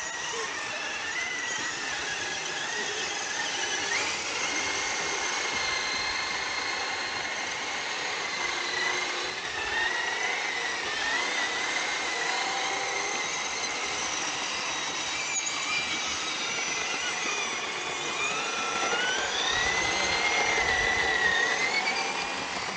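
Electric motors and geartrains of RC crawler trucks whining, several tones at once, the pitch rising and falling with the throttle; the loudest rising whine comes about nineteen seconds in.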